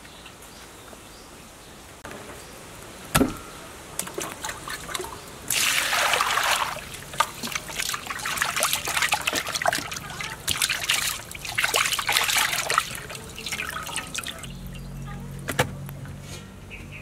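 Water sloshing and splashing in a stainless steel bowl as a piece of fish is rubbed and rinsed by hand, with a few sharp knocks.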